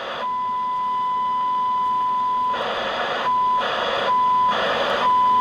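Icom IC-201 2 m transceiver putting out the demodulated 1 kHz tone of an FM test signal: a steady whistle, broken three times from about two and a half seconds in by short bursts of receiver hiss. This is heard during an FM receive-sensitivity check.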